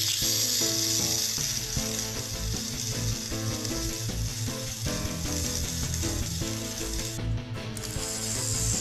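Small electric motors and plastic gearboxes of battery-powered Plarail toy trains whirring and clattering as the derailed engines' wheels spin freely. Background music plays underneath.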